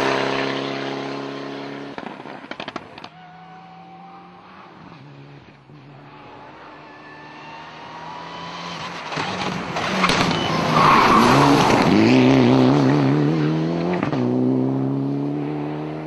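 Rally car engine at full throttle passing at speed. It fades away, then comes back and builds to its loudest about two-thirds in, the revs wavering up and down, before fading again into the distance.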